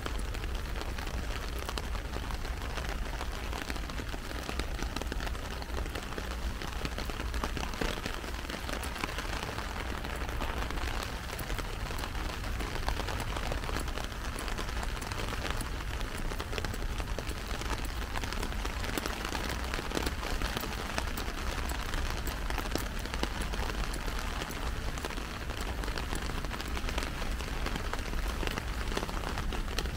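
Heavy rain falling on an umbrella overhead: a dense, steady patter of drops with a low rumble underneath.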